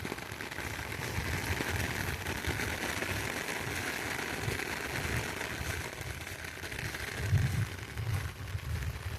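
Very heavy rain falling steadily as an even hiss, with wind gusts buffeting the microphone as low rumbles, a stronger gust about seven seconds in.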